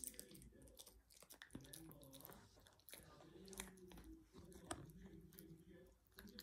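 Small dog chewing a dental chew, faint irregular crunches and sharp clicks as its teeth break the chew.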